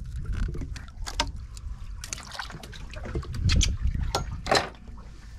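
Water splashing and dripping around a snowy grouper held by a lip gripper at the boat's side, a string of short splashes over a steady low rumble.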